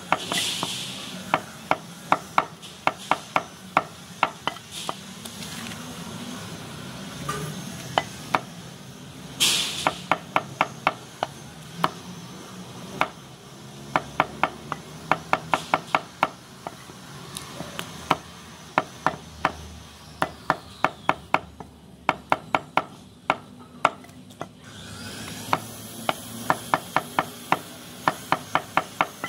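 Butcher's cleaver chopping goat meat on a wooden stump block: runs of quick, sharp chops at about three to four a second, with a few short pauses between runs.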